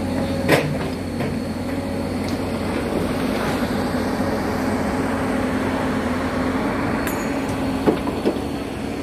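Heavy diesel machinery running with a steady drone, with a sharp knock about half a second in and another near the end.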